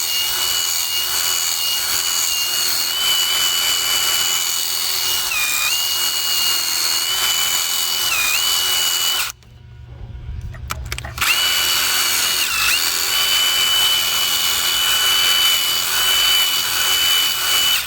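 Electric drill spinning a small wire brush to clean out spark plug holes: a steady high whine that sags briefly a few times as the brush loads up. It stops for about two seconds around the middle, then runs again.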